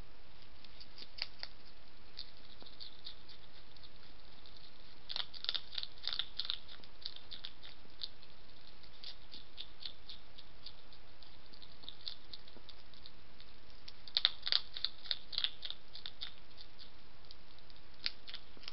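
Wild European hedgehog eating from a dish: crisp, crunchy chewing clicks, in two busy bursts about five seconds in and again around fourteen seconds, with scattered single crunches between, over a steady hiss.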